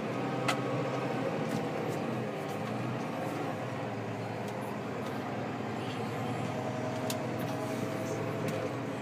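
Valtra T213 tractor's six-cylinder diesel engine running steadily under load, heard from inside the cab. A sharp click about half a second in and a few fainter ticks later.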